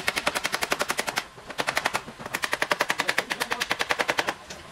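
Paintless dent repair: a hammer tapping a tap-down tool against the edge of a Renault Clio 5's front fender to work out a dent. Rapid light taps, about a dozen a second, in two runs with a short break about a second and a half in.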